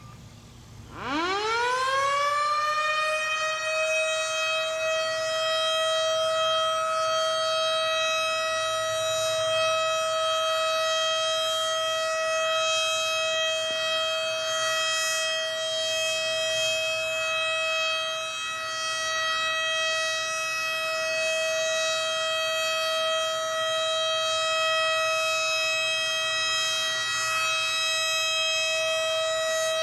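Sparton (Sparks-Withington) Model 37 outdoor warning siren winding up about a second in, then holding one steady pitch: the steady Alert signal, which this siren sounds for tornado warnings.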